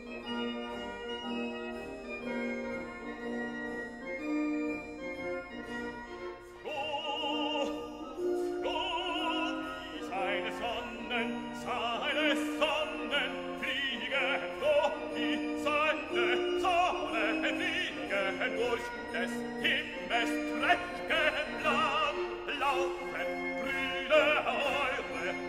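Music: held keyboard or organ-like chords, then, from about six and a half seconds in, a solo operatic voice singing with strong vibrato over the accompaniment.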